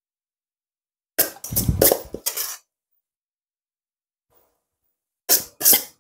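A spoon stirring and turning creamy, mayonnaise-dressed coleslaw in a serving bowl. It comes in two bursts of wet, scraping strokes, one about a second in and another near the end.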